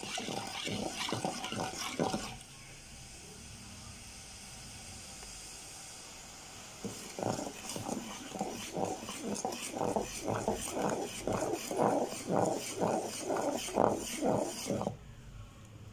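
Metal spoon stirring liquid briskly in an aluminium pot, scraping and sloshing at about two strokes a second. A few strokes at the start, a pause, then steady stirring from about seven seconds in.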